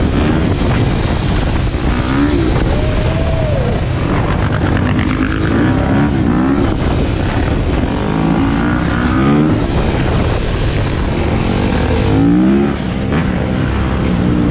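Sport ATV engines revving hard, the pitch rising and dropping several times as the throttle is worked and gears change, over heavy wind rush on the microphone.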